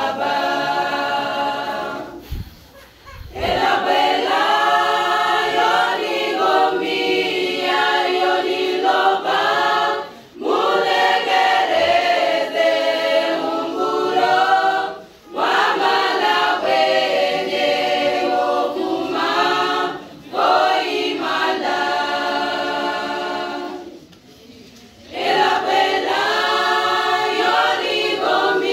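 Women's choir singing a cappella, with no instruments, in long sustained phrases broken by brief pauses between lines.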